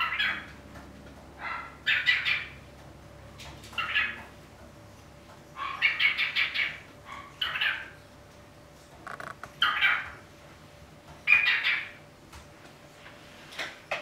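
Pet cockatiel chattering: a run of about eight short, pitched chirps and squawky calls, each under a second, with pauses between them.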